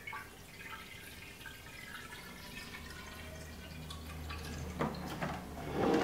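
Water trickling and dripping as it is poured slowly from a jug into an upright copper pipe, filling it.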